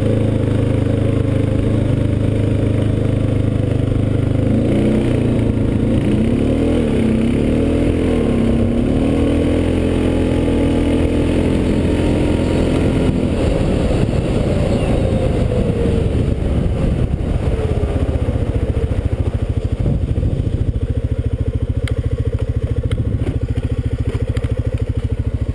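Honda 500 Trail Edition ATV engine running under way on a gravel trail. It holds steady at first, revs up and down several times through the middle, then gives way to a rougher rattle of tyres and chassis on gravel.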